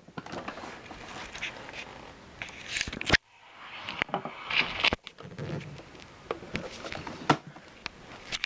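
Handling noises: rustling with several sharp clicks and knocks, as parts of a canister vacuum cleaner are handled. The vacuum's motor is not running.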